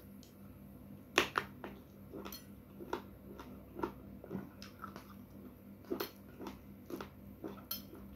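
Close-miked chewing of a mouthful of food, heard as about a dozen short, wet mouth clicks and smacks at irregular intervals.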